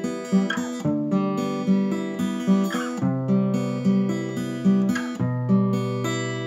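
Acoustic guitar playing a song's introduction: picked chords ringing out, about three notes a second, with the bass note dropping about three seconds in and changing again about five seconds in.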